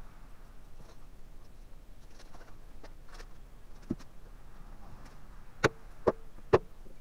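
A wooden mallet strikes the end of an awl held against a green cherry log: three sharp knocks about half a second apart near the end, with a lighter knock shortly before. Faint scratching and handling noises come earlier.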